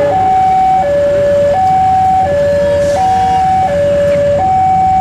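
Electronic two-tone warning alarm alternating high and low, each tone lasting under a second, with a low rumble underneath. It is typical of a railway level-crossing alarm sounding as a train approaches or passes.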